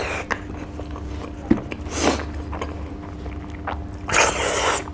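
Close-miked eating: a person biting and chewing a handful of rice and dried fish eaten by hand, with a sharp click a little after a second in, a short burst of mouth noise around two seconds, and a louder, longer burst near the end as the next handful goes into the mouth. A steady low hum runs underneath.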